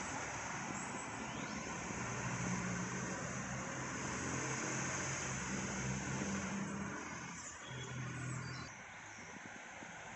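Road traffic: a motor vehicle's low engine hum over a steady rush of noise, swelling then easing off near the end.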